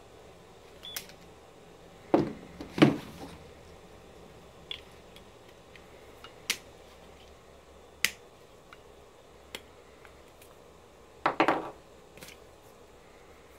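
Handling clicks and knocks as a temperature sensor on plastic clips is fitted onto a Honda Civic Hybrid battery stick of cylindrical cells: scattered light clicks, with louder clattering knocks about two and three seconds in and again about eleven seconds in.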